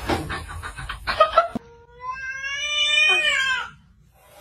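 A cat calling: rough, noisy sounds for the first second and a half, then one long drawn-out call that rises a little and falls away, dying out about half a second before the end.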